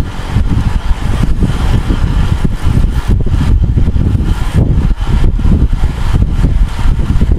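Wind buffeting a bike-mounted camera's microphone at riding speed: a loud, uneven low rumble mixed with road noise.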